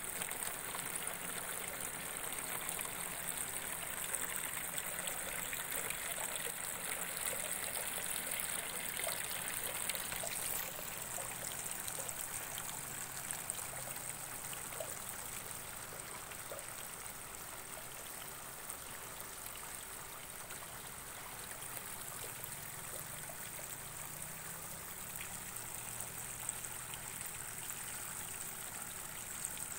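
Steady trickling water, as of nutrient solution running through hydroponic lettuce channels, with a constant high hiss over it.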